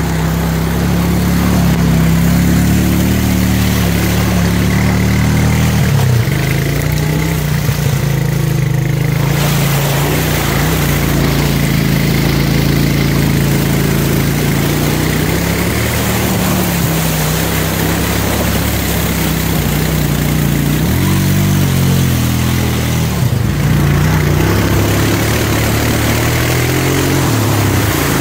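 Honda 350 quad's single-cylinder four-stroke engine running and revving while ploughing through a deep mud puddle, its engine note rising and falling as the throttle is worked. Muddy water splashes off the tires, loudest from about a third of the way in until about three-quarters through.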